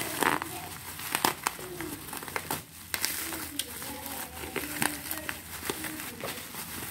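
Black plastic parcel wrapping being crinkled and pulled open by hand, with irregular sharp crackles.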